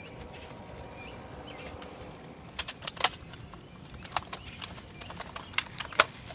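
A series of sharp, irregular clicks and taps, starting about two and a half seconds in. There are about eight of them, the loudest about six seconds in.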